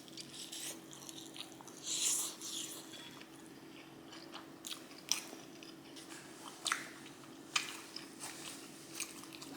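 Close-miked chewing of pizza: wet mouth clicks and smacks at irregular moments, with a longer, noisier stretch of chewing about two seconds in.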